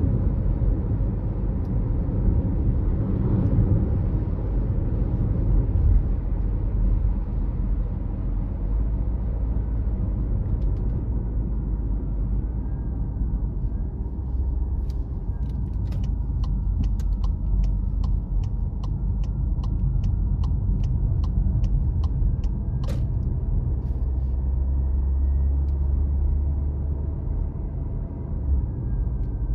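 A car driving, with a steady low rumble of engine and road noise. In the middle comes a run of evenly spaced ticks, about two a second, lasting some seven seconds, followed by a single sharper click.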